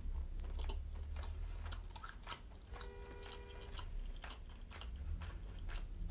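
Close-up chewing of tuna-stuffed squid: soft, wet mouth clicks and smacks. A short steady tone sounds for about a second near the middle.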